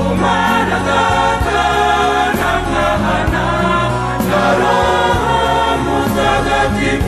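Choir singing a Kinyarwanda Catholic hymn to the Virgin Mary over instrumental accompaniment with a steady bass line.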